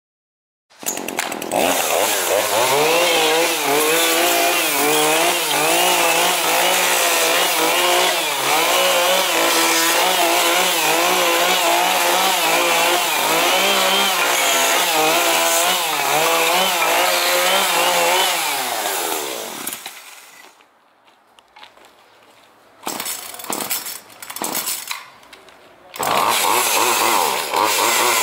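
Shindaiwa two-stroke chainsaw running at high revs while cutting through a log, its pitch rising and falling as the chain works through the wood. About 20 seconds in it dies away, with a few brief bursts of engine. Near the end it runs again at a steady pitch.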